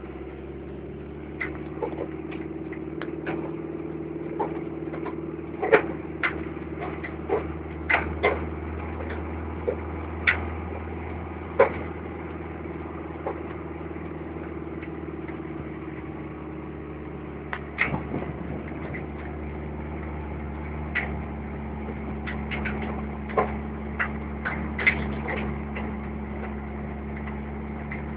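Vehicle engine running steadily while driving, heard from inside with the window open. Frequent sharp clicks and knocks, most of them in the first half and again near the end. The engine's pitch shifts once about two-thirds of the way through.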